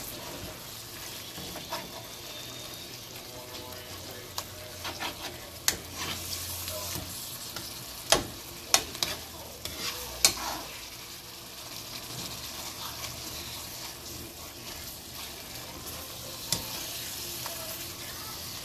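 Cooked carrot mixture sizzling in a nonstick frying pan while a wire potato masher stirs and coarsely mashes the softened carrots, scraping through the mash. Several sharp knocks of the masher against the pan come in a cluster around the middle.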